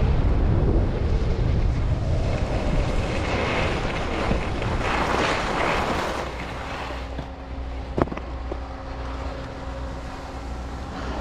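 Wind buffeting the microphone with a rushing hiss during a ski run. It dies down about six seconds in, leaving a quieter steady hum and one sharp click.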